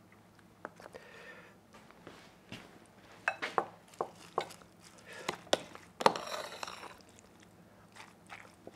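A spoon clicks and taps against a bowl while shredded cabbage and carrot are stirred together with mayonnaise and sour cream, giving soft wet scraping sounds. The sharpest clicks fall about three to five and a half seconds in, and a longer rustling scrape comes around six seconds.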